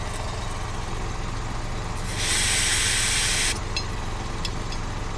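Compressed air from an air hose hisses at a spare tire's valve stem during inflation to about 55 psi, in one loud burst of about a second and a half a couple of seconds in. Under it is the steady drone of a running motor.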